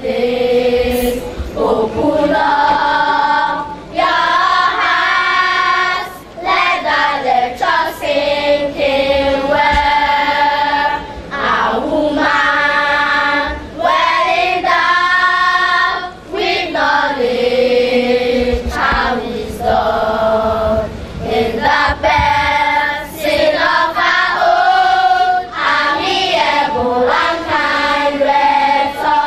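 A children's choir singing a song together, in held phrases of a couple of seconds with short breaks between them.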